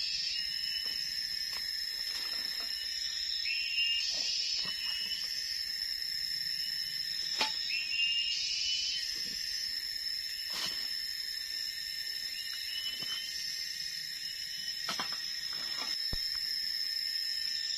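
Tropical forest insects droning steadily at two high pitches, with a short rising chirp call from an animal repeating every few seconds. Scattered crackles and rustles of dry leaf litter and twigs from someone moving through the undergrowth.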